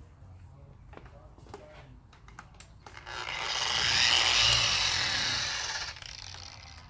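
Machine polisher with a foam polishing pad running on a plastic headlight lens for about three seconds: a whirring, rubbing hiss that starts about three seconds in, swells, and drops off about a second before the end.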